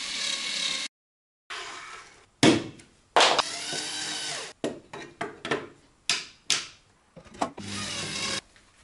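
A corded drill-driver running in a series of short bursts, drilling into and driving screws into white chipboard furniture panels. The motor's whine rises and falls with each trigger pull, with short sharp knocks between the runs.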